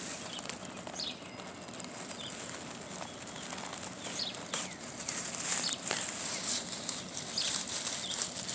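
Light rustling and crackling in grass, in scattered short clicks, over a steady high-pitched hiss, with a few faint short chirps.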